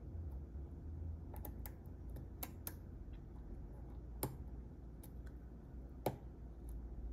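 Small, irregular metal clicks of a short hook pick and tension wrench working the pin stack inside a Master Lock 130 padlock's keyway, over a low steady hum; the loudest clicks come about four and six seconds in.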